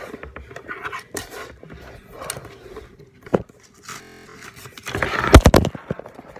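Scattered handling noises, short taps, rustles and scrapes, with a loud bump about five seconds in.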